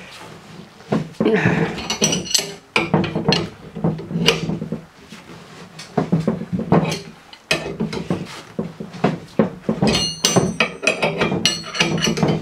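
Irregular metallic clicks and clanks from a wrench turning the screw of a C-frame bushing press, pressing a bushing into a steel lower control arm. The clinks come thickest near the end.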